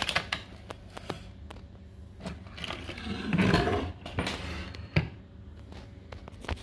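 Handling noise around an old wooden toolbox on a workbench: scattered sharp knocks and clicks, with a louder rough scrape or rub about three seconds in and a single sharp knock about five seconds in.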